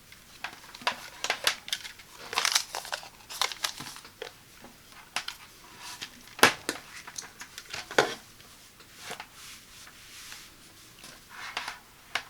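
Hands handling unboxing packaging: irregular rustling with scattered sharp clicks and knocks, the loudest about six and a half seconds in and again at eight seconds.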